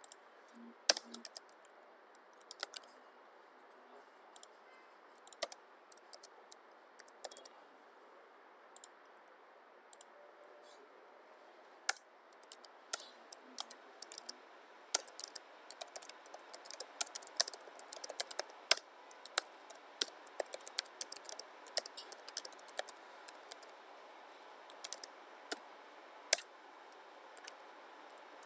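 Computer keyboard typing: scattered keystrokes and clicks for the first dozen seconds, then rapid, continuous typing from about twelve seconds in.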